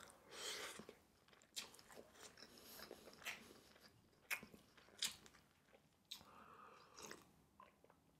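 Faint close-miked chewing of a mouthful of rice, with soft wet mouth clicks about once a second.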